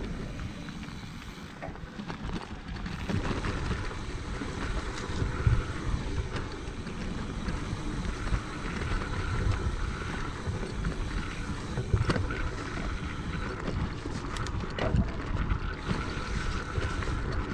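Mountain bike rolling fast down a dirt trail: wind buffeting the camera microphone over the hum of knobby tyres, with scattered clicks and knocks from the bike over bumps.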